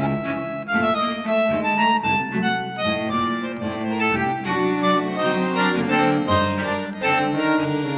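Instrumental background music: a melody of held, changing notes over a chordal accompaniment.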